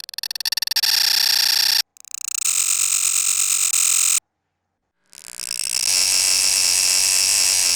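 Three digital glitch transition sound effects in turn. Each is a burst of stuttering, buzzing electronic noise that starts with a rapid stutter and cuts off abruptly, with short silences between them.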